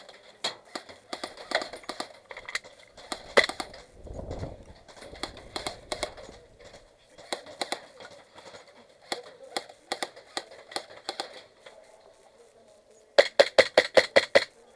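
Airsoft guns firing: scattered single shots and short strings of snapping shots, ending in a rapid burst of about ten shots near the end.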